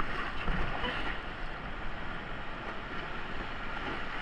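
Steady rushing of creek water.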